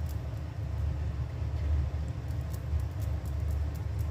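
A steady low rumble in the background, with faint, irregular scratches of a block of cheese being rubbed across a small handheld metal grater.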